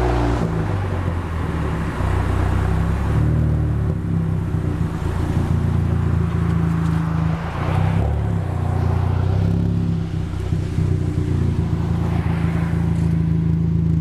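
2013 Ford Focus ST's turbocharged 2.0-litre four-cylinder heard through its Roush cat-back exhaust, revs falling and settling about half a second in, then running steadily at low revs with small rises and dips.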